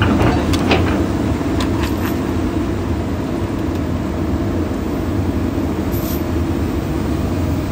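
Hydraulic excavator diesel engines running steadily at a low, even hum, with a few sharp knocks in the first two seconds.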